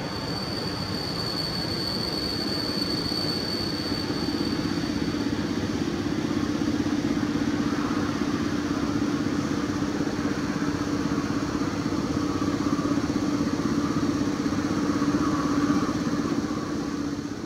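PKP Intercity EP07 electric locomotive drawing a passenger train slowly into a station, with a steady low hum that grows a little louder as it nears. A thin high squeal sounds over the first few seconds.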